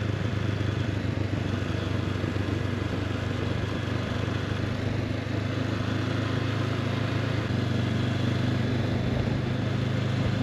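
Honda CB500X motorcycle's parallel-twin engine running steadily while riding, with wind and road noise.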